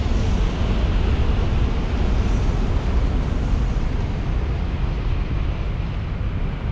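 Shinkansen bullet train running past on a viaduct: a steady rushing roar that slowly fades as the train draws away, with a heavy low rumble of wind on the microphone.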